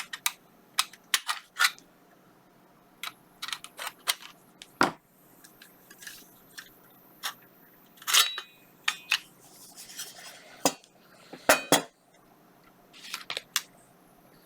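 Irregular sharp clicks and metallic clinks of hand tools and screws against a metal casing as a computer power supply unit is taken apart, with a brief scrape about two-thirds of the way through.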